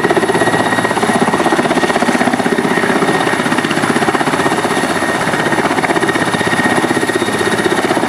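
Mi-172 helicopter with its twin Klimov TV3-117 turboshaft engines running and rotors turning on the ground: a fast, steady beat of the main rotor blades over a steady high turbine whine.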